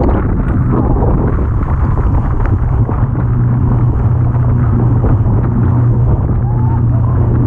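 Small motorboat running fast across open sea: a loud, steady engine drone with wind buffeting the microphone and water rushing and spraying along the hull.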